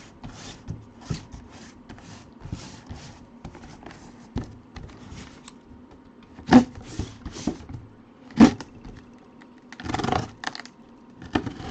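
A cardboard box and its packaging being handled and opened: scraping and rustling, with two sharp knocks about two seconds apart past the middle and a short burst of rustling near the end.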